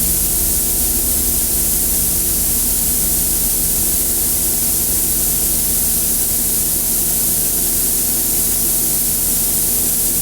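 Harsh noise recording: a steady wall of static hiss with low hum tones droning underneath. It cuts off abruptly at the very end.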